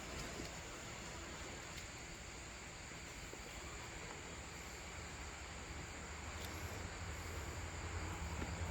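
Outdoor ambience: a steady high insect drone under a low rumble that grows louder toward the end.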